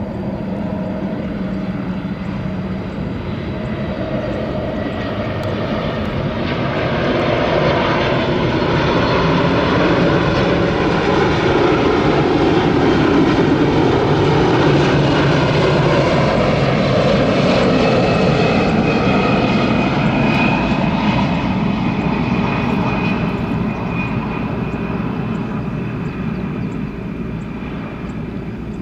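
Jet engines of a Boeing 747-400F freighter on approach: a steady rumble that grows louder as the aircraft comes near, peaks about halfway through, then slowly fades. A thin high whine rises over the rumble in the second half.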